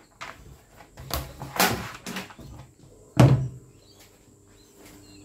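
Several separate knocks and thuds of a hatchet and a hard stab-resistant panel being handled and set down on a hard surface, the loudest a little past three seconds in.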